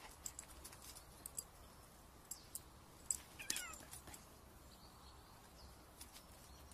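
A cat meowing once, a short call that falls in pitch about three and a half seconds in, with faint scattered clicks and a low steady hum around it.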